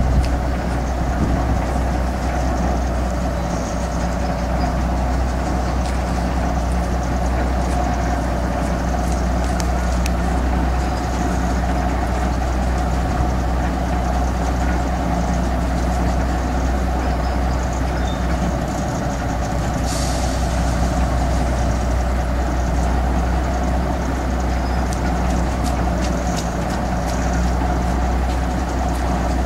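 Engine of a lattice-boom crawler crane running steadily, a constant low hum.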